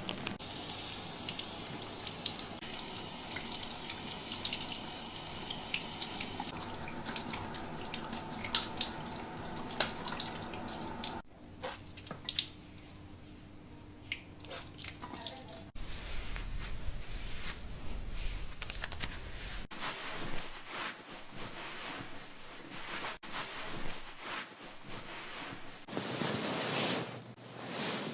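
Water running and dripping as hair is rinsed at a salon wash basin, with small splashes and drips. The sound changes abruptly several times.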